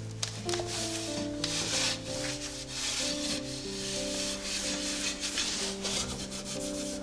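Dusting: a cloth or duster wiping back and forth across a surface in repeated rubbing strokes, over background music with held notes.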